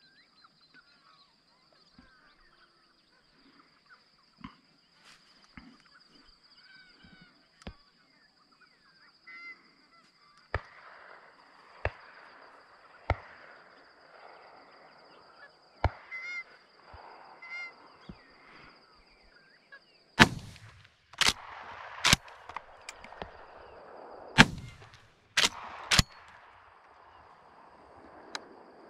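A flock of magpie geese honking as they fly in. A few faint distant shotgun shots come first, then six loud, close shotgun shots in quick succession over about six seconds, over a steady high insect drone.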